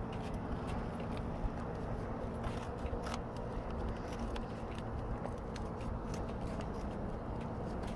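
Scissors snipping and trimming a foil-faced fiber heat-shield sticker, with scattered crisp clicks and crinkles of the material over a steady low background rumble.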